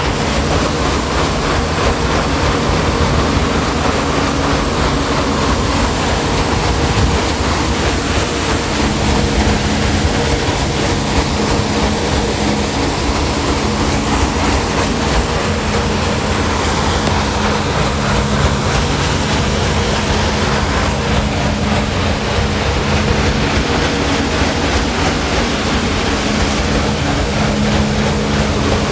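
Sternwheel paddleboat under way: the stern paddle wheel churning and splashing through the water over a steady low machinery hum, running evenly without a break.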